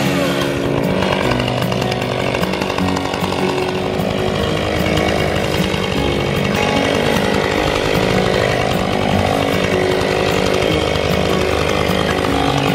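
Gas chainsaw running steadily, its engine pitch rising and falling as it is revved while cutting up fallen tree branches broken by ice.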